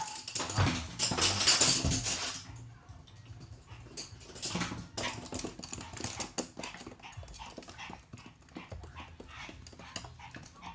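Toy poodle barking as it runs, with scattered light clicks and scrabbling, likely its claws on a wood-look floor.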